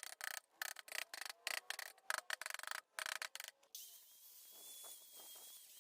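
A quick, irregular run of short scraping, rubbing strokes that stops a little under four seconds in, followed by a faint steady hiss with a thin high whine.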